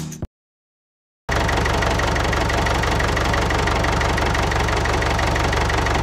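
Small electric motors of a homemade mini tractor with a circular saw cutter running steadily: an even whirring buzz with a fast, regular pulsing. It starts about a second in, after music cuts off and a moment of silence.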